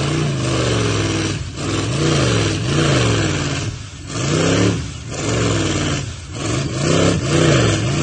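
Twin-turbo LS V8 jet boat engine running untuned, its pitch rising and falling over and over, roughly once a second. It breaks up and chops like an engine with a big cam, though the cam is stock: the sign of a tune that is not yet sorted.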